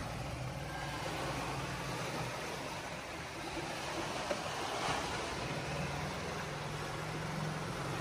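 Jet ski engine running offshore, a steady low hum that comes through most strongly in the first couple of seconds and again in the second half, over a steady rushing background.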